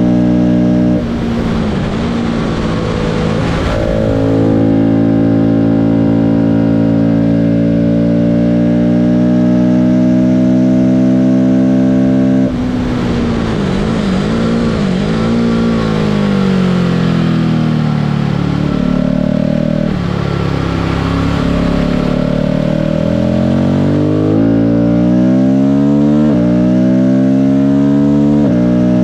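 A vehicle engine lapping a track. It holds steady revs at first, then the revs fall and waver as it slows, and from about two-thirds of the way in it climbs repeatedly, with a sudden drop in pitch at each upshift.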